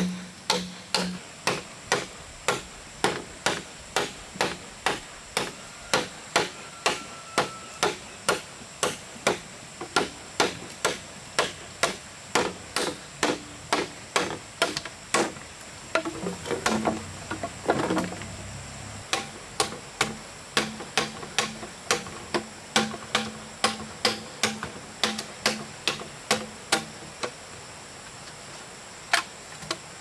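Steady strikes of a hand tool on wood, about two a second, with a short break a little past the middle and a last lone strike near the end.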